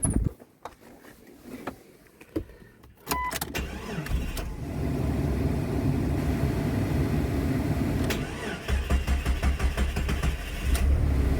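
Jeep Cherokee XJ's 4.0-litre straight-six cranking and catching about three seconds in, then running at idle. It is the first start after its idle air control valve and throttle body were cleaned.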